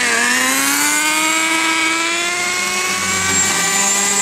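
Electric rotor motors and twin propellers of an RC bi-rotor helicopter whining as it hovers, the pitch climbing slowly and steadily.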